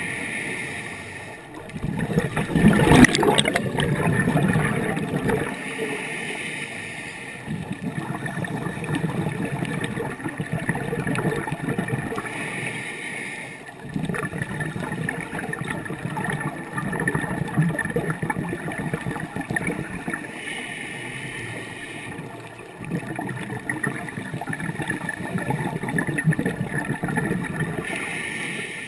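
Scuba diver breathing through a regulator underwater. A short hiss comes on each inhale, then several seconds of gurgling exhaust bubbles on each exhale, repeating slowly.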